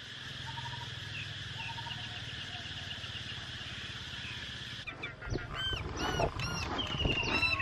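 A steady early-morning background of insects and faint bird chirps. About five seconds in it gives way to domestic fowl calling close by in quick, repeated short calls, with low bumps of wind on the microphone.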